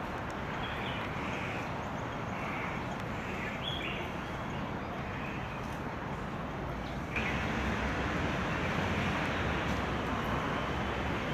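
Steady outdoor city ambience, a low traffic hum, with birds chirping now and then; the background noise steps up in loudness about seven seconds in.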